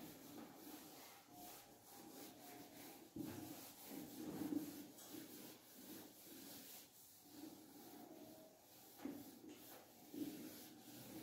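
A whiteboard being wiped clean with an eraser: faint, uneven rubbing strokes across the board.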